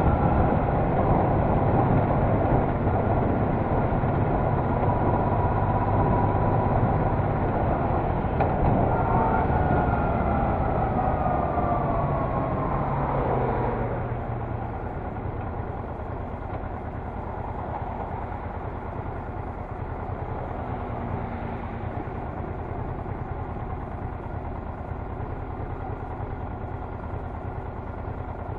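Honda Deauville NT650V's V-twin engine running as the motorcycle rides along, with road noise. About halfway through, the engine note falls and the sound drops as the bike slows to a stop, and the engine then idles quietly.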